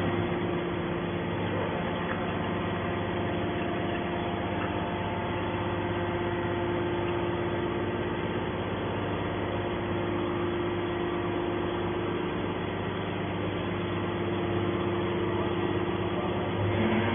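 Hydraulic scrap metal baler running steadily while pressing stainless steel scrap: an even machine hum with a low drone and a held steady tone, getting a little louder near the end.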